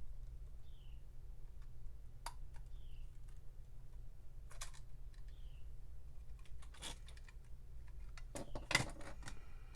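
Small sharp clicks and taps as iPod parts and a connector are handled: a few single clicks spaced a couple of seconds apart, then a quick cluster of louder clicks near the end. A faint short falling chirp repeats every couple of seconds underneath.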